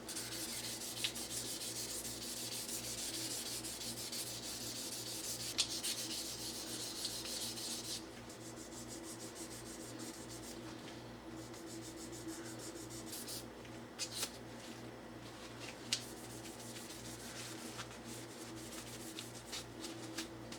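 Fine 1500-grit sandpaper rubbing over a Bakelite utensil handle, a steady scratchy hiss. It is louder for about the first eight seconds, then lighter, with a few small clicks.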